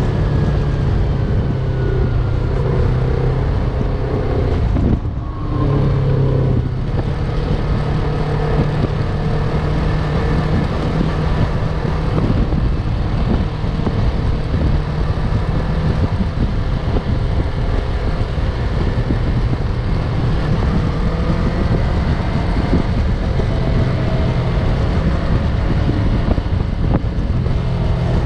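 Yamaha MT-03 motorcycle engine running steadily under way, with wind rushing over the microphone. The engine note drops out briefly about five seconds in, then picks up again.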